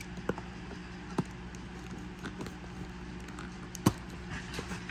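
Dogs moving about, heard as a few sharp clicks and taps, the loudest about four seconds in, over a steady low hum.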